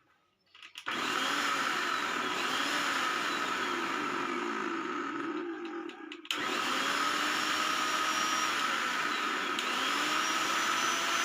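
Mixer grinder's motor running at speed, a steady whir that starts about a second in, drops away briefly near six seconds and cuts back in suddenly. It runs with new shaft bushes fitted, without the earlier grinding 'ghar ghar' noise.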